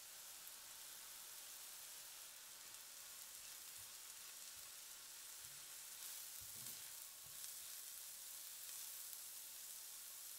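Sliced leeks sizzling steadily in fat in a pan while being stirred with a wooden spatula, with a few soft low knocks around the middle.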